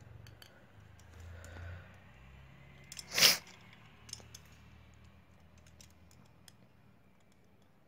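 Light clicks and taps of small tools and phone parts being handled, with one short, loud hiss about three seconds in.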